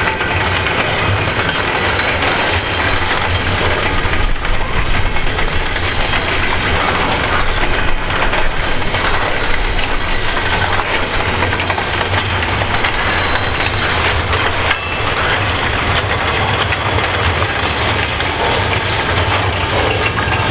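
Double-stack container well cars of a freight train rolling past: a steady, loud rolling noise of steel wheels on the rails, with occasional clicks.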